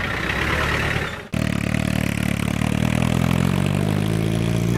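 Car engines pulling away: a Land Rover Defender running for about a second, then, after a cut, a small open roadster's engine driving off, its note rising slowly and steadily in pitch.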